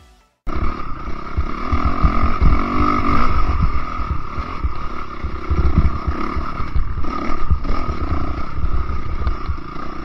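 Enduro dirt bike engine running under throttle while riding a rough dirt trail, cutting in suddenly about half a second in. It holds a steady pitch, with irregular low thumps over it.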